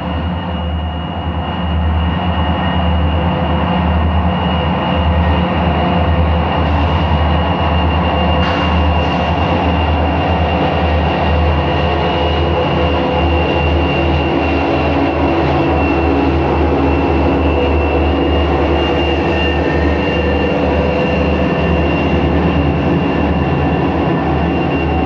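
Diesel-electric freight locomotives working hard under load, pulling a heavy coal train up a grade: a deep, steady engine drone with a thin, high, steady whine held above it.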